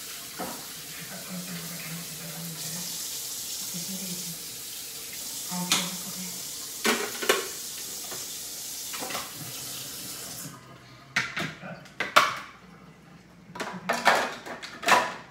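Kitchen tap running into a sink while juicer parts are washed, with a couple of knocks against the sink. About ten seconds in the tap shuts off, followed by a run of louder clatters and knocks as the parts are handled.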